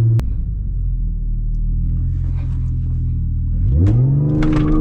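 Tuned Audi A6 on E85 fuel, its engine running with a low, steady note, then from about four seconds in revving sharply upward as the car accelerates hard from a launch.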